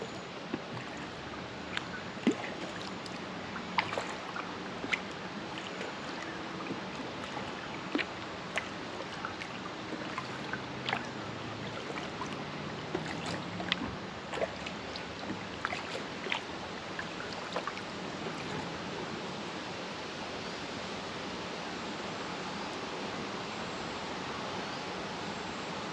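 Kayak paddle strokes in lake water: short splashes and drips from the blade over a steady wash of water. The splashes stop about two thirds of the way through, leaving only the wash.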